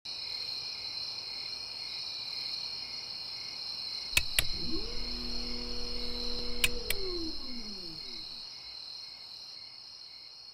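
Crickets chirping steadily, fading near the end. About four seconds in, a double click, then an electric motor whirring up to speed, running and winding down over the next few seconds, with another double click partway through: motorised exterior blinds retracting.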